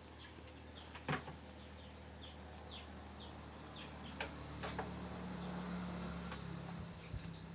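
Steady high-pitched insect drone with scattered short falling chirps. Two sharp clicks come through, about a second in and about four seconds in.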